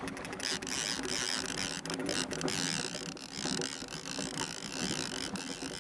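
Fishing reel being cranked to bring in a hooked muskie, its gears giving a rapid, continuous ratcheting click under the load of the fish.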